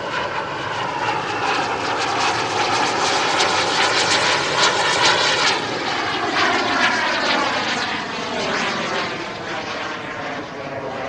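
JetCat P-220RXi turbine of a 1:3.3-scale Fiat G.91 model jet in flight, a whooshing jet noise. It grows to its loudest about halfway through, then fades as its pitch falls while the jet passes and draws away.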